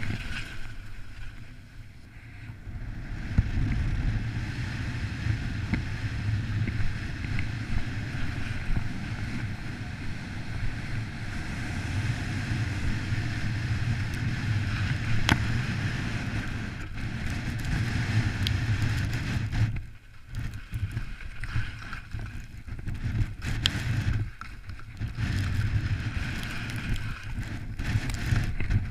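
Wind buffeting the microphone: a gusty, low rumble with a couple of short lulls in the second half.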